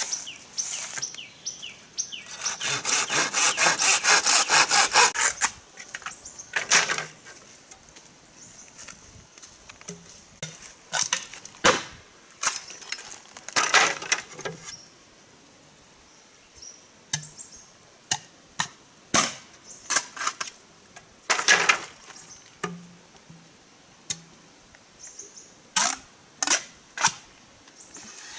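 Green bamboo being sawn with quick back-and-forth strokes for about three seconds, the loudest sound. It is followed by sharp, separate knocks of a tool on bamboo, a few seconds apart, as the bamboo is worked.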